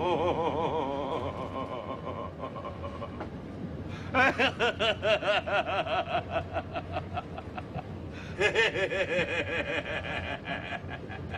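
A man laughing hard in quick, high ha-ha pulses. There is a short fit at the start, then two long loud fits beginning about four and about eight seconds in, over the steady low rumble of the subway car.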